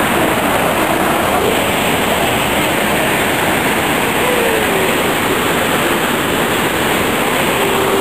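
Whitewater waterfall and rapids rushing over rock, a loud, steady roar of falling water.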